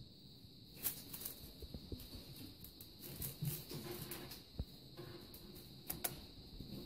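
Russian Blue kittens scuffling and pattering on a textured bath mat as they bat at a feather wand toy: soft irregular taps and rustles with a few sharp clicks, over a faint steady high hiss.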